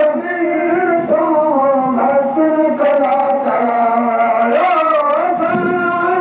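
Sindhi molud: a devotional song in praise of the Prophet, sung with long, held notes that glide and bend.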